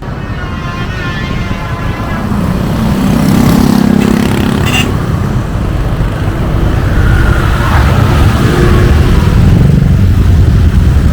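A road vehicle on the move, with a loud low rumble that builds over the first few seconds, and a brief click about five seconds in.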